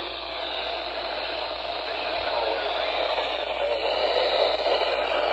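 Steady hiss of static from a weather radio receiver whose weak, distant station has faded out. The hiss swells gradually louder.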